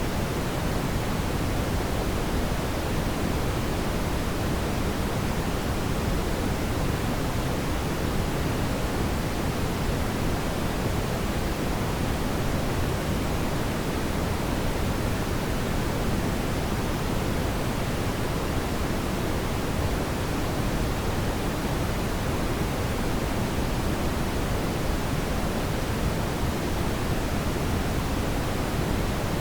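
Steady brown noise: an even, deep rushing hiss weighted toward the low end, with no changes or events.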